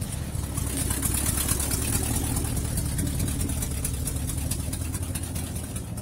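1965 Ford F100's 390 V8 idling steadily, with a rapid, even ticking puff from major exhaust leaks.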